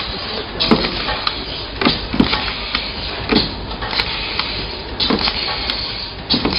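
Automatic cable tie gun binding ties around a wire harness: a quick run of sharp clicks and snaps, about a dozen at uneven intervals, over a steady hiss.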